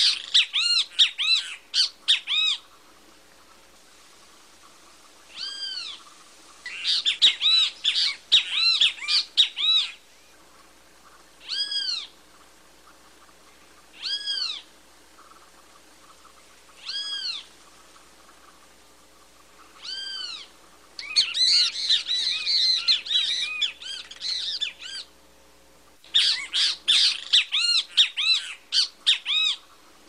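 Great kiskadee (bem-te-vi) calling. Bouts of rapid, harsh, repeated notes alternate with single drawn-out calls about every two to three seconds.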